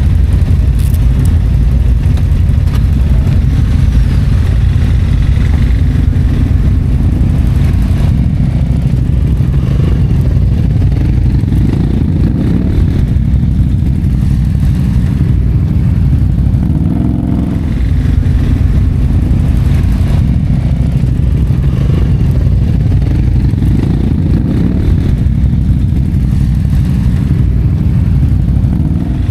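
ATV engine running steadily under way on an off-road trail, easing off briefly around the middle and picking up again.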